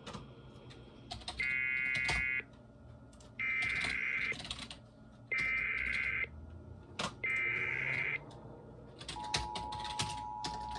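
Emergency Alert System activation heard over a radio broadcast: four harsh, buzzy digital data bursts of the SAME header, each about a second long and about a second apart, then near the end the steady two-tone EAS attention signal begins. A few sharp clicks are scattered through it.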